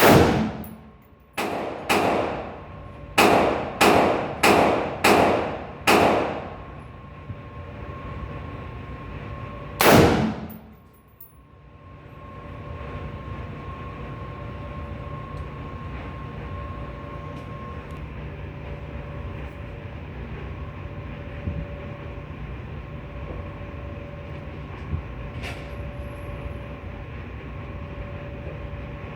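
Gunshots at a firing range: about eight shots in quick succession over the first six seconds, each with a short ringing tail, then a single shot about ten seconds in. A steady hum with faint steady tones fills the rest.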